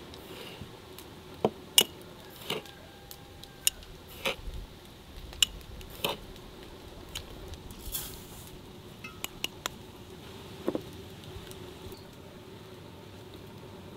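Kitchenware being handled: dishes, glass and utensils clinking and knocking. There are about a dozen separate clinks at irregular intervals, the sharpest near two seconds in.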